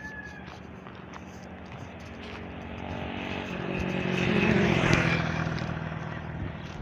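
A motor vehicle passing by: its engine hum swells to its loudest about four to five seconds in, then fades away.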